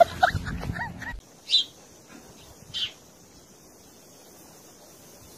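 Voices that cut off about a second in, then two short high bird chirps about a second apart over a faint steady high hiss.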